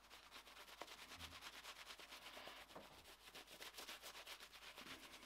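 Faint, rapid, scratchy strokes of a shaving brush working shaving-cream lather over a stubbled face and neck.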